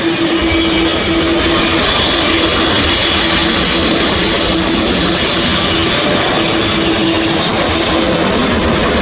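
Boeing 777-300ER's twin GE90 turbofans on final approach, gear down, passing low and close: loud, steady jet noise with a high fan whine and a low steady hum running through it.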